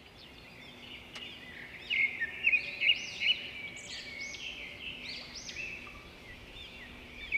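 Birds chirping and singing: a busy run of short, repeated rising-and-falling chirps, loudest from about two to three and a half seconds in.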